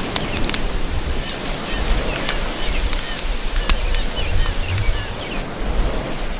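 Outdoor summer ambience: a steady rushing wash with wind rumbling on the microphone, and small birds chirping many times over it. A few sharp clicks are scattered through it.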